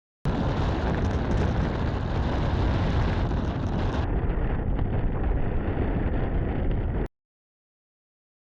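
Strong gusty wind blasting a bike-mounted or handheld camera's microphone as a loud, heavy rumble, cut off abruptly near the end.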